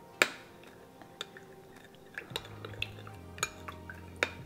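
Metal spoon stirring a thin starch slurry of oyster sauce and water in a small glass bowl, giving a few light clinks of spoon on glass, the sharpest just after the start, among soft wet swirling. A low steady hum comes in about halfway through.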